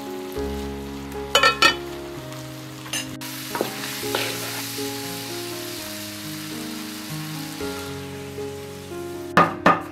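Corn kernels sizzling as they stir-fry in a pan, turned with a spatula, over background music with a slow melody. A quick run of sharp knocks starts near the end.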